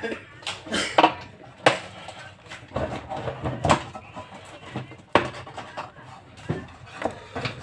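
Irregular clicks, knocks and clinks of small hard parts being handled and fitted during a room heater repair, several sharp ones close together about a second in and more scattered through the rest.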